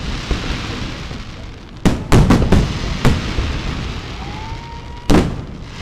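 Aerial firework shells bursting: a sharp bang about two seconds in, a quick cluster of bangs right after, another about three seconds in and a last one about five seconds in, each trailing off in an echo. A thin rising whistle sounds just before the last bang.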